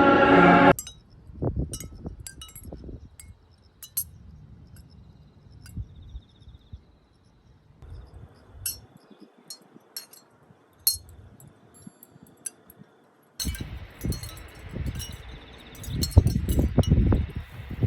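Background music cuts off just under a second in, followed by scattered light clinks and tinkles with a few soft low thumps.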